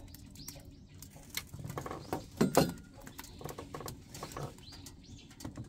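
Fire crackling in a small glass-paneled wood-burning stove, with scattered sharp pops and a couple of louder knocks about two and a half seconds in.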